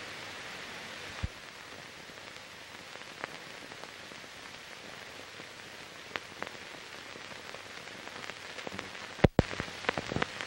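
Steady hiss with scattered clicks and pops, the surface noise of an old film transfer that has no recorded sound. The pops come thicker near the end, with one loud crack about nine seconds in.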